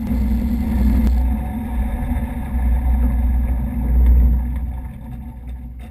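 Yak-12M's nine-cylinder radial engine running at idle on the ground, then dying away near the end as it is shut down and the propeller slows to a stop.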